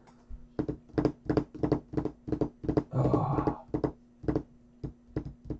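Fingers tapping on a wooden tabletop, an uneven run of sharp taps about three a second, with a brief noisier sound about three seconds in.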